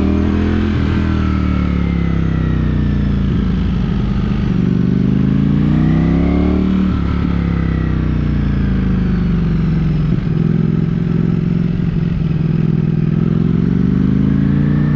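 Ducati Streetfighter V4 motorcycle's V4 engine under way. It rises steadily in pitch as the bike accelerates, drops about seven seconds in, then climbs again.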